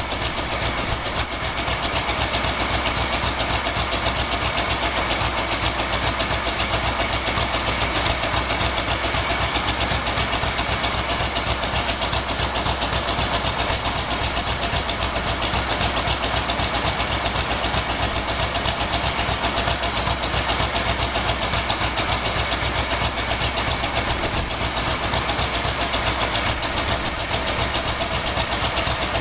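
1979 Ford F-250's 351M V8 with a two-barrel Motorcraft 2150 carburetor idling steadily while it is being tuned. The engine is still running rich on the driver's side.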